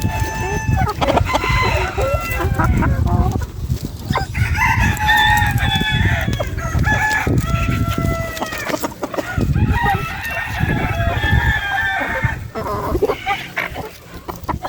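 Chickens clucking, with a rooster crowing several times.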